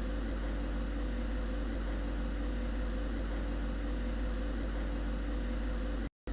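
Steady room noise: a low hum with a faint even hiss and no other events, cutting out abruptly to silence for a moment near the end.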